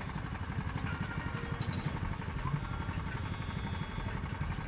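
A small motor-vehicle engine idling, a steady low rumble with a fast uneven pulse. A brief high rustle comes about two seconds in.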